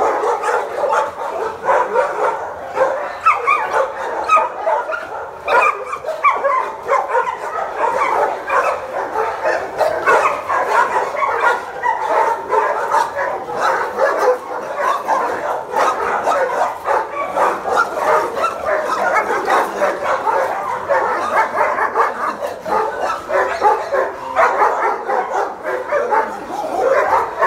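Many dogs in kennel runs barking at once, a continuous overlapping din with no pauses.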